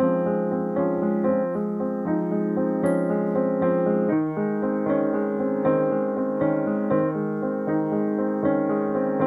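Fazioli grand piano playing a steady run of rapidly repeated chords, with the harmony shifting about four seconds in.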